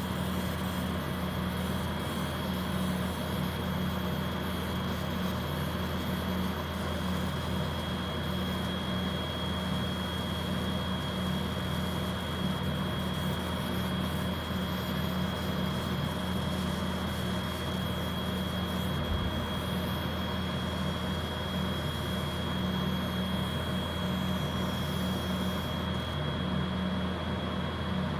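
Galvo-head laser engraver running an engraving job, a steady machine hum with a constant high whine from its fans and galvo mirrors.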